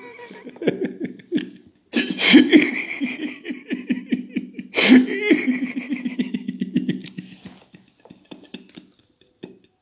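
A man laughing theatrically in rapid 'ha-ha' pulses, with two sharp loud cries about two and five seconds in, trailing off toward the end.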